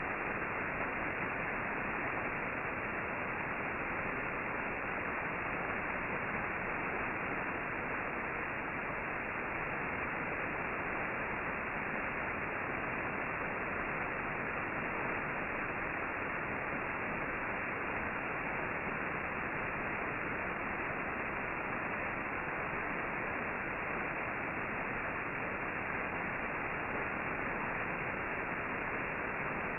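Steady HF radio band static from an amateur transceiver: an even, dull hiss with no Morse tones in it.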